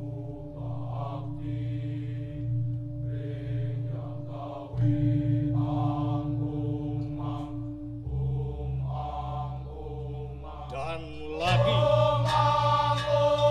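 Balinese gamelan accompaniment with a solo vocal chant: low gong tones held and slowly beating under the voice's chanted phrases. Near the end the voice slides up and the sound grows louder and brighter.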